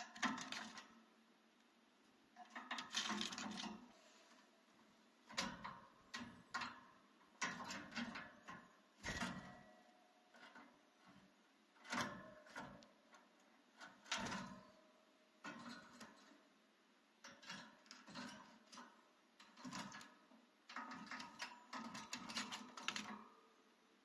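Budgie moving and pecking about the newspaper-lined floor of its wire cage: faint clusters of taps and paper rustles, one every second or two.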